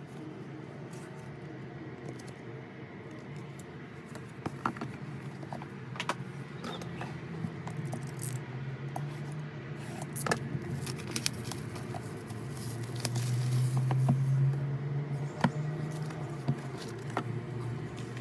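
Album packaging being handled during an unboxing: scattered clicks, taps and rustles of cardboard and plastic, over a steady low hum that swells for a couple of seconds past the middle.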